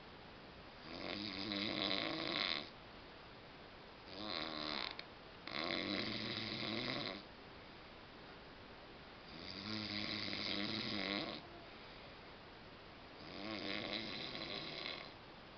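A man snoring in his sleep: five loud, rough snores of a second or two each, with quieter breathing gaps between them, two of them coming close together near the middle.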